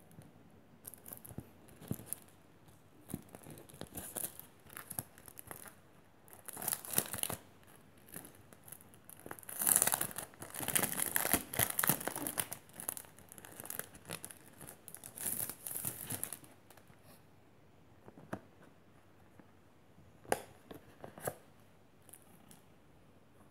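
Thin plastic packaging and vinyl decal sheets crinkling and rustling in bursts as they are handled and pulled apart, loudest about halfway through. A few isolated light ticks and rustles follow near the end.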